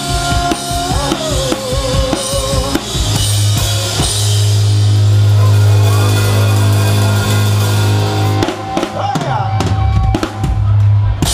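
A rock band playing with a loud drum kit. A busy beat runs for about three seconds, then a long held low note and chord with only scattered hits, and a quick run of drum hits shortly before the end.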